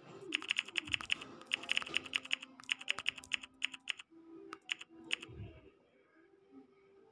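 Rapid key-press clicks of a smartphone's on-screen keyboard as a message is typed, coming in several quick runs, then a short pause and a few single taps. Faint background music runs underneath.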